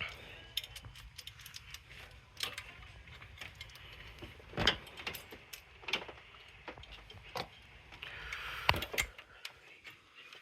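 Irregular metallic clicks and clinks of hand work on the clutch cable's fittings at the transmission fork, with two louder knocks about halfway through and near the end.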